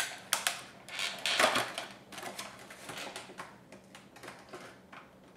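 Thin plastic packaging crinkling and crackling as a toy action figure is pulled out of it by hand, in quick irregular bursts that are busiest in the first three seconds and thin out toward the end.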